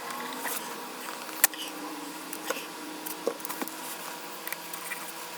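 Light handling sounds while tape and cable are being worked: scattered small clicks and ticks, with one sharper click about a second and a half in.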